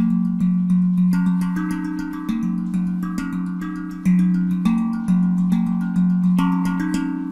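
Handpan (steel hand drum) tuned to F Phrygian at 432 Hz, struck by hand in a steady rhythm of about two ringing notes a second. The playing stops about six and a half seconds in, and the last notes ring on and fade.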